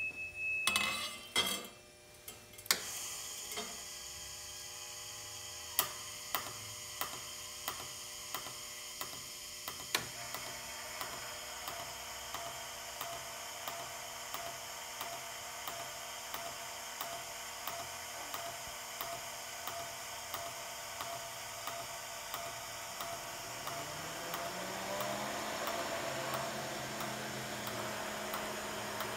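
TIG welding arc from a Miller Dynasty inverter butt-welding a titanium seat tube on a motor-driven rotary fixture: a steady hiss and electrical buzz starting a few seconds in after a few clicks, with a faint tick about every half second. Near the end a low hum rises in pitch and then holds.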